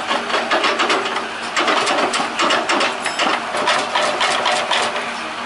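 Excavator's diesel engine running steadily under a rapid, irregular metallic clatter as the bucket is worked to shake a clod of mud loose.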